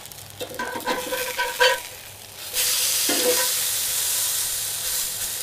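A metal utensil clinks and scrapes against a skillet, ringing briefly, then a loud sizzle starts suddenly about two and a half seconds in and carries on as food fries in hot oil.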